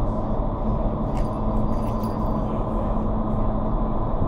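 Steady rush of air from a vertical indoor skydiving wind tunnel in operation, with a constant low hum from its fans.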